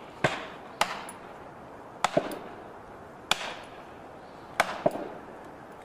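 Sledgehammer striking plastic felling wedges driven into the back cut of a tree: about seven sharp blows, roughly one a second, some in quick pairs.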